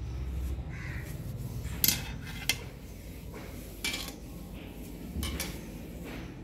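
Several sharp clinks and knocks of hard objects being handled. The loudest two come about two seconds in, with more near four and five seconds.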